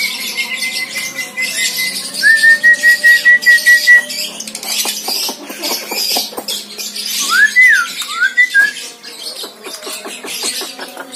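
Javan myna calling: a long steady whistle, then a quivering whistle, then harsh noisy chatter full of clicks, with two quick up-and-down whistled glides a little after the middle.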